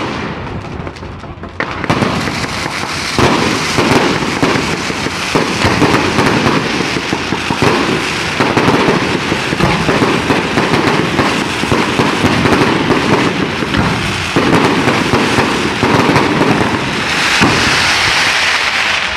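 Fireworks going off in rapid, dense succession: a continuous crackle of many bangs and pops that thickens about a second and a half in, turning to a brighter hissing crackle near the end.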